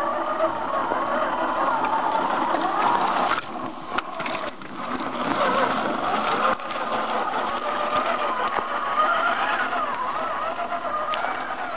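1:10-scale RC crawler truck's electric motor and geared drivetrain whining as it crawls over rough ground, the pitch rising and falling with the throttle. The sound breaks off sharply twice, a little over three seconds in and again near the middle.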